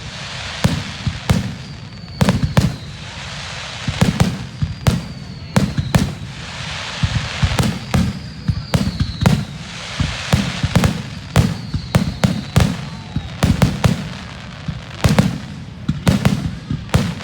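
Fireworks grand finale: aerial shells bursting in rapid volleys, several booms a second, over continuous crackling, with a few faint falling whistles.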